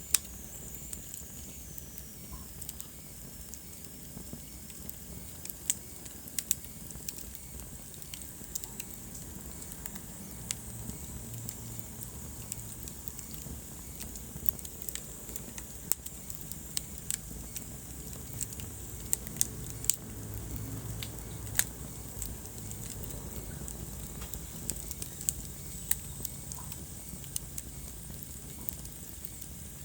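Wood fire burning in a fireplace: irregular sharp crackles and pops over a steady low rumble of flames. A faint high whistle slides down in pitch in the first couple of seconds.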